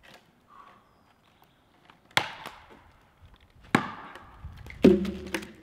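Axe chopping into a standing tree trunk: three heavy strikes about a second and a half apart. The last strike is followed by a brief low ringing tone.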